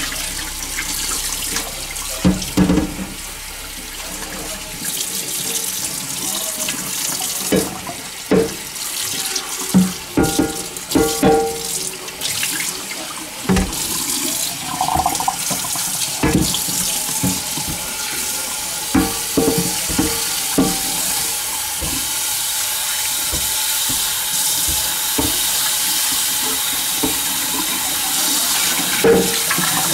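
Water running from a tap while a cast iron skillet is rinsed and scrubbed at the sink, with scattered knocks and clunks of the pan being handled.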